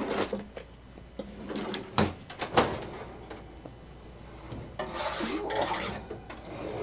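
A few sharp knocks and clunks, then a short scraping rustle about five seconds in: kitchen fittings being handled and opened.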